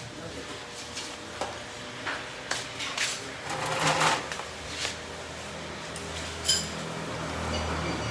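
Metal tools and parts clinking and knocking as a car's underside is worked on, with a short scrape about four seconds in and one sharp, ringing metal clink later on.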